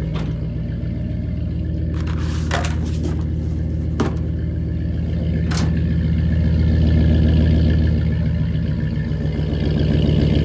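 2018 Ram 1500 idling through an aftermarket MBRP exhaust: a steady, loud, deep exhaust note that swells a little past the middle and again near the end. A few light clicks sound over it.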